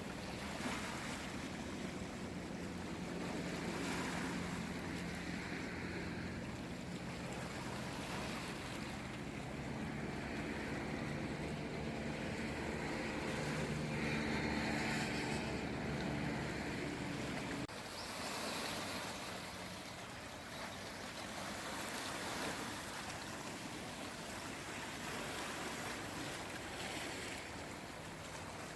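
Sea waves washing in and drawing back in slow swells, with a low steady engine hum underneath that stops abruptly about two-thirds of the way through.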